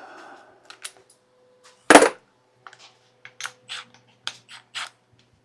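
Metal tools and parts being handled: light metallic clicks and clinks, with one loud clack about two seconds in, followed by a quick run of light clicks.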